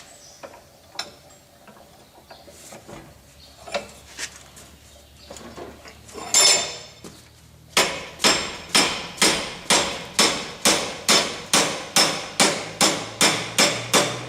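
A hand hammer strikes hot steel on an anvil in a steady run of blows, about two to three a second, starting about halfway in, tightening the bend of an L-shaped Allen wrench. Before the blows there are scattered light clinks and a short scrape of tools being handled.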